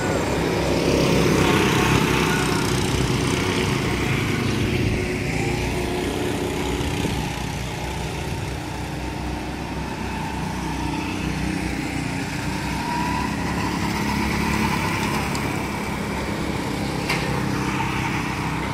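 Several small go-kart engines running as the karts circle the track, their steady drone loudest about two seconds in.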